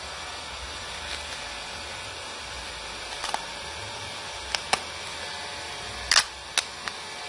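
A scattered series of sharp clicks and taps from small hard objects being handled, the loudest about six seconds in, over a steady background hiss.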